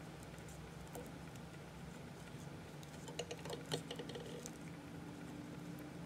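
Faint small clicks and rustles of fingers wrapping gold wire ribbing around a chenille caterpillar fly held in a fly-tying vise, over a low steady hum. Most of the clicks fall in a short cluster a little after the middle.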